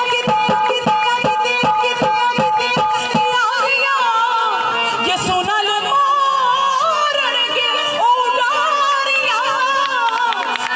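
Live devotional song (masih geet) through a PA: a keyboard holds chords over a steady dholak beat, and about three and a half seconds in a woman's voice comes in singing a wavering, ornamented melody over the drum.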